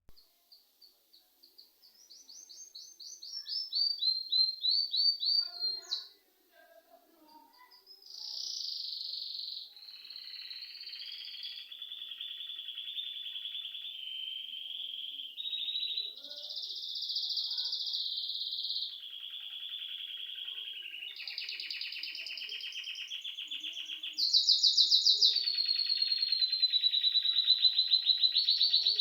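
Songbirds singing in long, rapid trills of quickly repeated high notes, one trill running into the next, with a short pause about six seconds in and louder song near the end.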